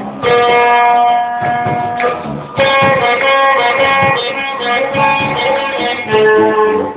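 A band playing music led by guitar, with melody notes held for a second or more over a steady accompaniment. There is a brief dip in loudness about two and a half seconds in.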